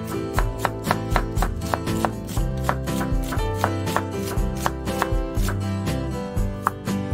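Chef's knife slicing an onion thinly on a wooden cutting board: a steady run of quick knife taps on the board, about two to three a second, moving on to slicing garlic cloves near the end. Background music plays underneath.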